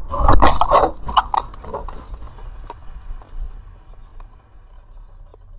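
A quick burst of loud knocks and bangs in the first second and a half over a low road-and-engine rumble inside a moving car, the rumble fading away afterwards.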